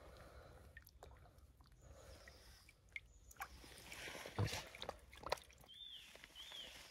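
Faint sloshing of shallow stream water around a hand releasing a brown trout, with a few small, sharp splashes about halfway through.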